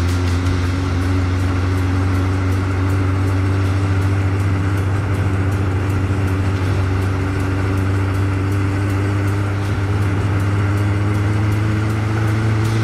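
Honda CB1100SF X11's inline-four engine running steadily while the motorcycle cruises, its note creeping slightly higher, under a constant rush of wind and road noise.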